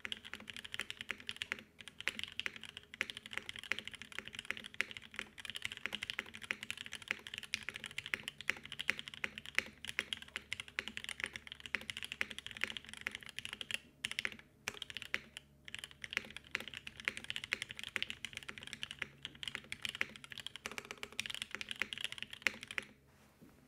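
Continuous fast typing on a mechanical keyboard with lubed and filmed Gateron Mini linear switches in an aluminum-plate Frog TKL under CRP R4 keycaps: a dense stream of keystrokes, with a couple of brief pauses in the middle, stopping shortly before the end.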